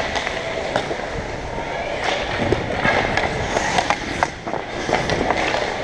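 Hockey skates scraping and carving on the ice, with sharp clacks of sticks and puck scattered through a close battle for the puck.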